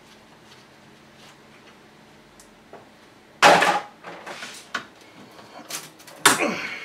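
A few sharp knocks and clatters of hard tools and parts being handled and set down: a loud one about three and a half seconds in, lighter taps after it, and another loud clatter near the end.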